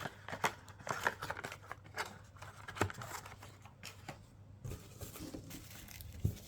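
Hands handling packaging and small objects on a tabletop: irregular rustling and crinkling with light clicks, and a couple of duller knocks, one about three seconds in and one near the end.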